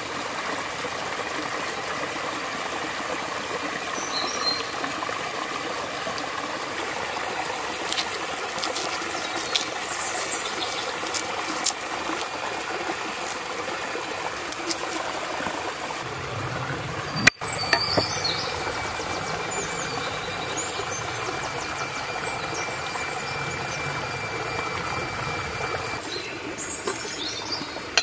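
Steady outdoor ambience with a thin, continuous high-pitched insect drone over a hiss, and scattered light clicks and crackles from hands peeling garlic cloves.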